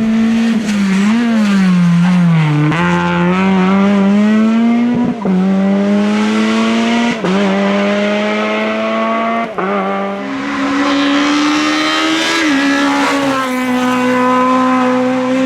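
Naturally aspirated Group F2000 rally car engine accelerating hard, its pitch climbing through each gear and dropping at four quick upshifts, then held at high revs.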